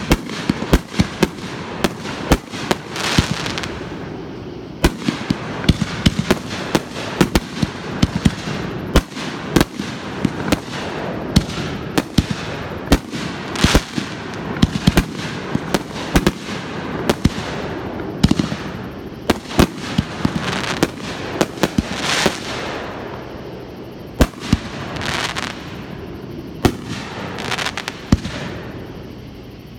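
Fireworks display: aerial shells bursting in quick, irregular succession, dozens of sharp bangs. Several brief hissing stretches come between them.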